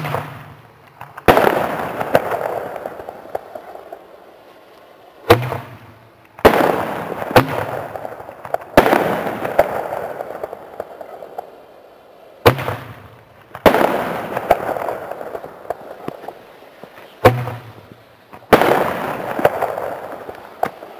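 Firework shells fired from a mortar tube. Four times, a sharp launch crack is followed about a second later by a louder bang in the air that fades slowly. There is one more bang in the middle.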